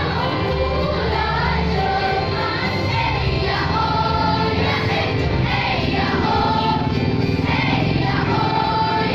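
A children's school choir singing together, holding a steady note at the end of each phrase every couple of seconds or so.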